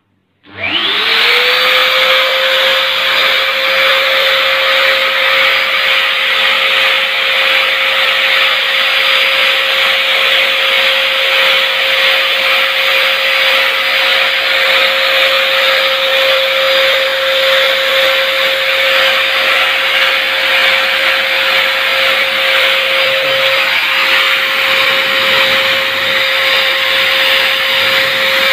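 Electric ULV cold fogger starting up: its blower motor winds up to speed within about a second, then runs steadily with a high whine over a rush of air as it fogs out water.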